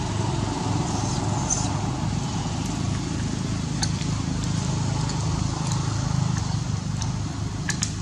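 Steady low background rumble, with a few sharp clicks near the end.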